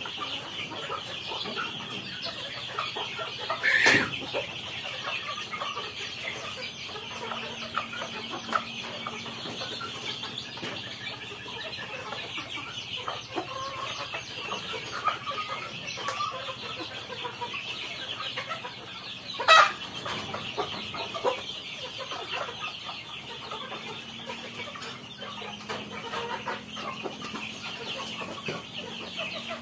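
A flock of native chickens clucking and calling without a break, with two brief, loud sharp sounds standing out, about four seconds in and again near twenty seconds.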